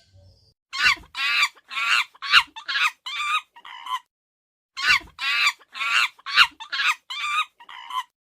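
Chicken calling in two runs of about seven short, quick calls each, with a pause of under a second between the runs and the last calls of each run trailing off quieter.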